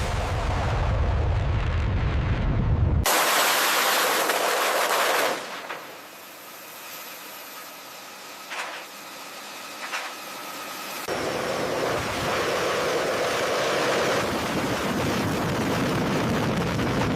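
F/A-18 Super Hornet jet engines at full military power on a carrier flight deck. A deep rumble for about three seconds switches suddenly to a loud hiss, drops to a quieter stretch with a few clicks, and then a steady rush comes back about eleven seconds in.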